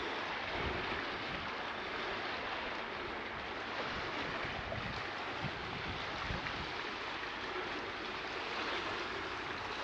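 Wind blowing across the microphone: a steady rushing hiss with uneven low rumbles from gusts hitting the mic.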